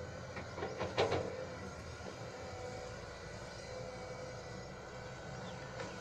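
Earthmoving machinery running steadily, with a few metallic clanks about a second in and another near the end.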